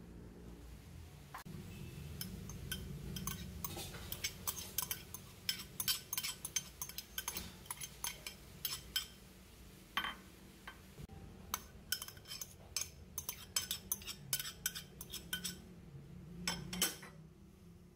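A metal spoon clinking and scraping against glass bowls as chopped spring onions and then diced onion are spooned into a glass mixing bowl. The clinks are sharp and irregular, with a short pause partway through.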